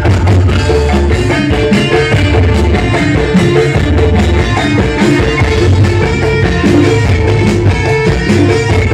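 Music with a steady drum beat, guitar and heavy bass, played loud through a large sound system being checked.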